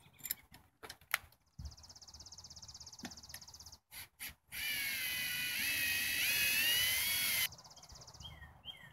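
Cordless drill driving a number 10 stainless steel screw to mount a cleat. A lighter run of the motor comes about two seconds in, then a louder run of about three seconds from the middle, its pitch shifting as the screw bites and seats.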